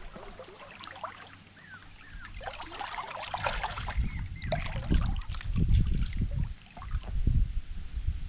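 Pool water splashing and lapping as a three-week-old puppy paddles through it, with a burst of splashing a few seconds in. In the second half there are uneven low thuds of water sloshing close by.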